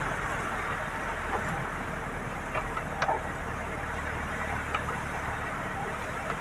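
Steady in-cabin road noise of a vehicle driving on a wet highway in heavy rain: engine hum under the hiss of tyres on water and rain on the glass, with a few short clicks around the middle, the sharpest about three seconds in.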